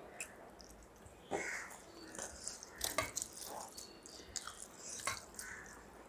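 Close-up eating sounds: chewing and wet mouth noises with a few sharp clicks.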